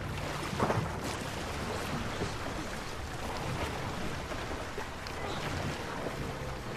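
Steady wash of choppy sea water and wind around a small rowboat.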